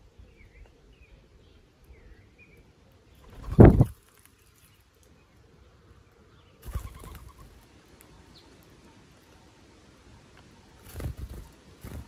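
A few faint small-bird chirps, then a loud brief flutter of a laughing dove's wings about three and a half seconds in as it lands on the feeder, with softer wing flutters around seven and eleven seconds.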